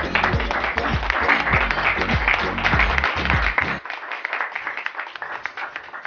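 Applause from a group of people over music with a deep, pounding drum beat; the music cuts off about four seconds in and the clapping carries on.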